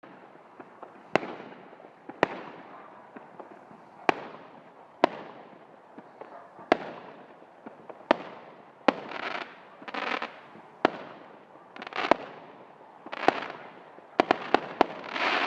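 Fireworks going off: a string of sharp bangs about a second apart, each trailing off in an echo, several followed by brief crackling. Near the end comes a quick run of cracks that builds into a dense crackle.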